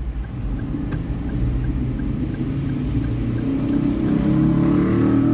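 Car engine and road noise, a steady low rumble that grows louder and rises a little in pitch about four seconds in, as when the car speeds up.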